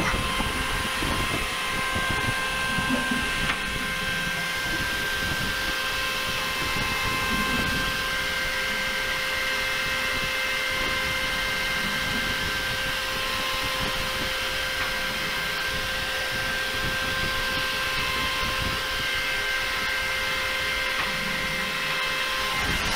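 Steady hum and whine of running machinery, with several high tones held level over a rushing noise.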